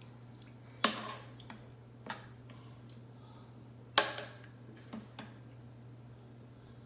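A metal spoon clinking against a large stainless steel pot while raw chicken pieces are stirred in water. There are two sharp clinks, about a second in and about four seconds in, with a few lighter taps between.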